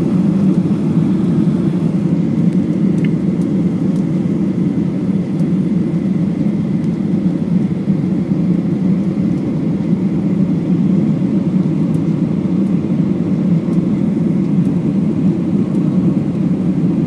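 Cabin noise inside a Boeing 737-800 descending on approach to land: the engines and rushing airflow heard as a loud, even, low roar, with a faint steady high tone above it.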